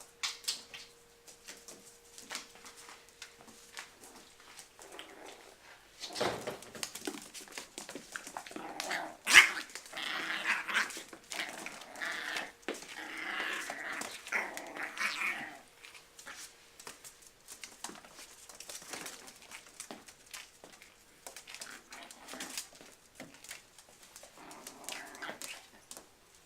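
Two puppies play-fighting: growling and yapping over scuffling paws and bodies, loudest in a long stretch of growls through the middle, with one sharp knock in it, then quieter scuffling towards the end.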